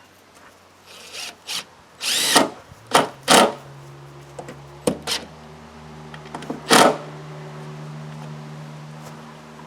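Power drill run in several short bursts, the loudest four within the first seven seconds, with a steady low hum setting in about three and a half seconds in.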